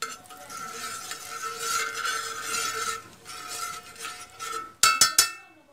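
Desi ghee sizzling as it melts on a hot iron tawa and is spread with a spoon. The sizzle starts suddenly, and near the end the spoon strikes the tawa in a few sharp metallic clinks.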